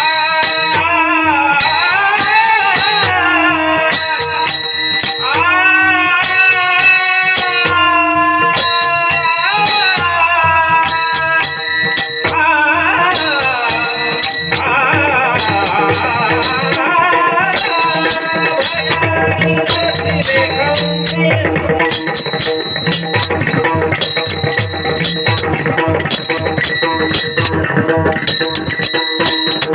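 Varkari kirtan devotional music: small brass hand cymbals (taal) struck in a steady rhythm with mridang drum strokes, under voices singing a drawn-out melody that bends and slides in pitch, most plainly in the first half.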